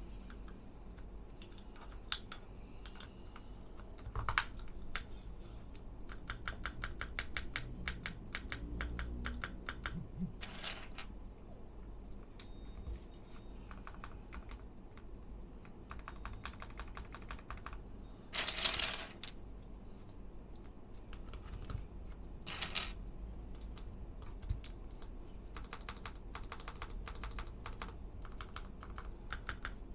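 Typing on a Monsgeek M1W mechanical keyboard fitted with Gateron Milky Yellow linear switches: quick runs of key clicks broken by short pauses, with a few louder key strikes, the loudest and longest about two-thirds of the way through.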